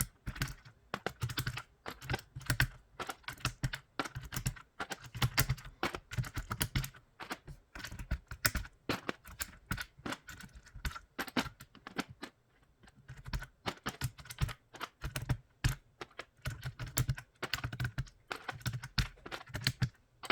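An aigo A108 hot-swap mechanical keyboard being typed on: quick, irregular runs of key clacks with low thuds as the keys bottom out, easing off briefly just past the middle.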